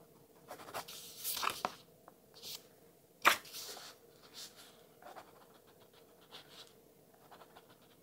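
Titanium pen with a gel refill writing on notebook paper: short scratchy strokes, bunched in the first couple of seconds, with one sharp knock a little over three seconds in.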